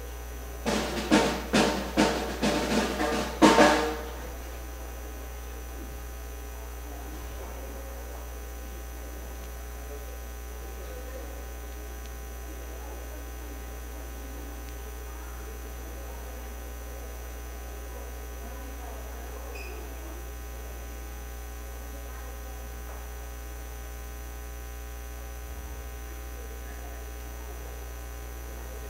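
Drum kit played in a quick run of sharp hits, a short fill that ends about four seconds in. After it only a steady electrical mains hum remains.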